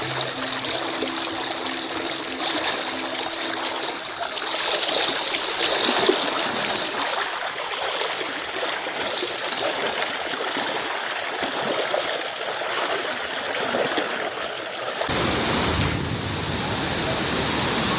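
Mountain stream running over rocks, a steady rush of water. About fifteen seconds in, the sound turns fuller and deeper.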